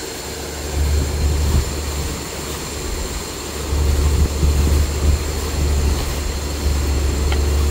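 Borewell drilling rig and its engine-driven air compressor running steadily under load: a loud low drone that swells and eases, over a wide hiss with a thin steady high whine.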